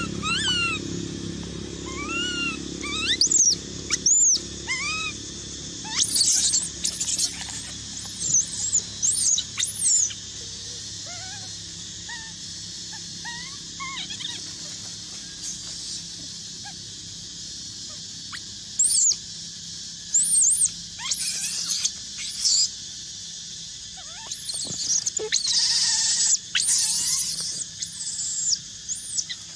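Baby macaque crying: repeated high-pitched squeals and screeching cries that rise and fall in pitch, coming in bursts with short gaps between them. They are the distress cries of an infant being weaned by its mother.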